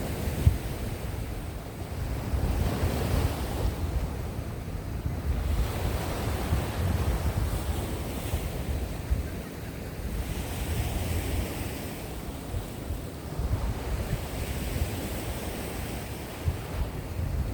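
Sea waves washing onto the shore, the surf swelling every few seconds, with wind buffeting the microphone as a low rumble.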